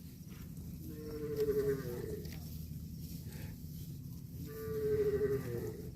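A cow mooing twice, each call about a second long and dropping slightly in pitch at the end.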